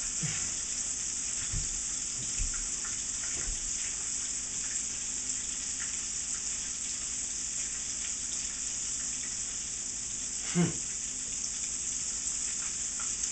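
Parmesan-breaded, prosciutto-wrapped chicken deep-frying in hot oil: a steady sizzle. A few soft knocks come in the first few seconds, and a brief vocal sound about ten and a half seconds in.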